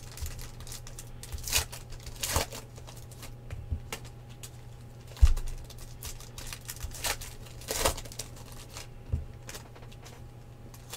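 Trading cards and pack wrappers being handled on a table: scattered rustles, crinkles and light clicks, with one sharper knock about five seconds in, the loudest sound.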